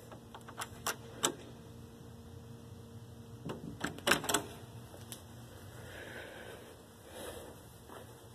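Round metal door knob on a classroom door being gripped and turned, the latch clicking and rattling: a few sharp clicks in the first second or so, then a quick cluster of louder clicks about four seconds in.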